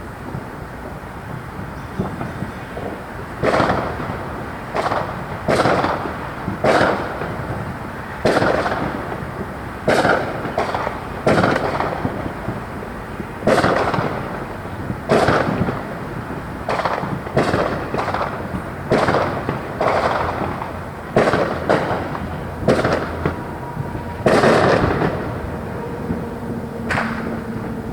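Fireworks exploding: a string of sharp bangs at irregular intervals, roughly one a second, each trailing off in an echo.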